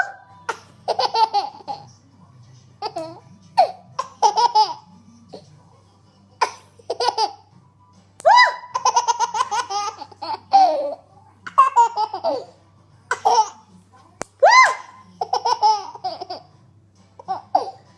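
A baby laughing and giggling in a string of short, high-pitched bursts that rise and fall in pitch, with brief pauses between them.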